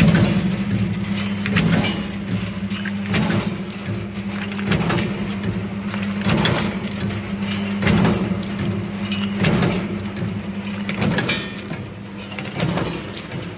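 Impact-type walnut cracking machine running: a steady motor hum under a dense clatter of sharp knocks and cracks, the clatter swelling about every second and a half, as its hammer rotor strikes and cracks walnuts.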